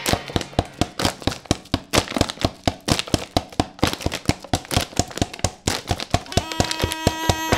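Quick, irregular taps and scratches of a piece of chalk on a stone wall, several a second. A held musical chord comes in near the end.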